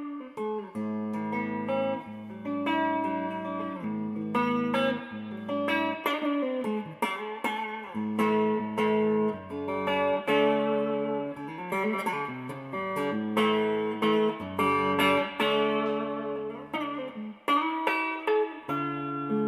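Tokai Love Rock, a Les Paul-style solid-body electric guitar, played solo: chords struck every second or two and let ring, with single notes picked in between.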